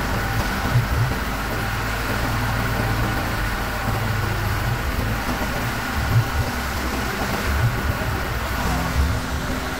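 Diesel engines of an asphalt paver and a dump truck running steadily while the tipped truck unloads asphalt mix into the paver's hopper, with a few short low thumps.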